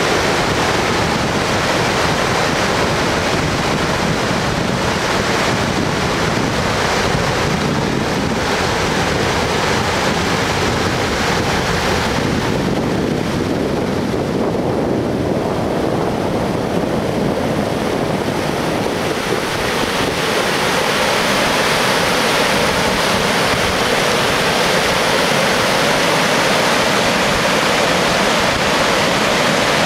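Stream water rushing down granite slabs and small cascades at a lake outlet, a loud, steady rush. The rush turns fuller and brighter about two-thirds of the way through.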